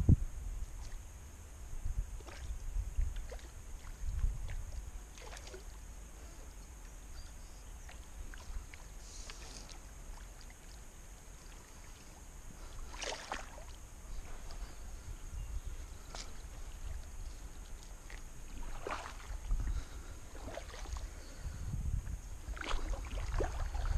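Small splashes, water movement and light knocks around a kayak on the water, scattered through a low rumble.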